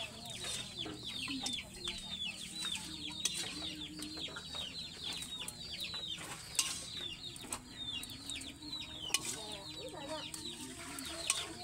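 Chickens clucking, with a near-continuous stream of quick, high, falling chirps, and a few sharp metal clinks of a spatula against a wok and an aluminium pot.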